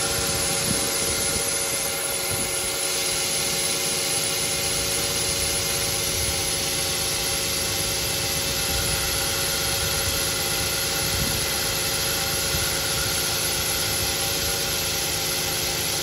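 Running Audi engine with its poly-V serpentine drive belt squealing steadily at one unchanging pitch, over the engine's own running noise. The squeal comes from the belt slipping on its pulleys, with low belt tension given as the probable cause.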